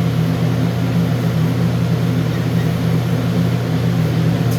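A steady low machine hum that keeps an even pitch and level throughout.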